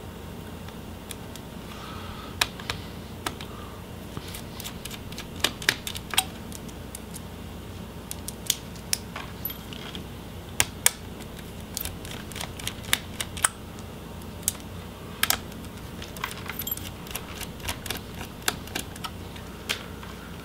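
Small sharp clicks and taps at irregular intervals: a Phillips screwdriver working the screws out of a laptop's heatsink, metal on small metal screws. A faint low hum runs underneath.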